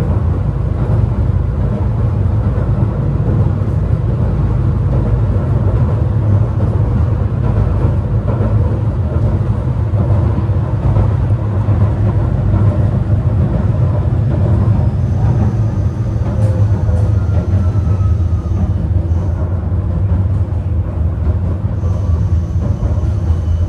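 Cabin noise of a 71-931M Vityaz-M low-floor tram running along the track: a loud, steady deep rumble of the moving car, with a faint high whine in the second half.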